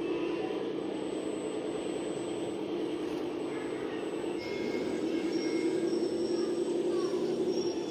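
A radio-controlled model vehicle running, with a steady engine drone that gets louder about four and a half seconds in.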